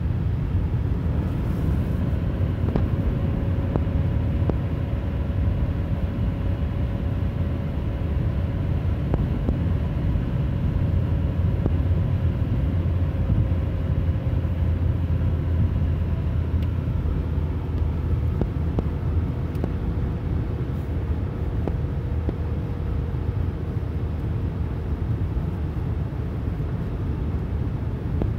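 Steady low rumble of tyre and road noise from inside a moving car's cabin at highway speed, with a faint hum that drifts slowly lower in pitch through the middle.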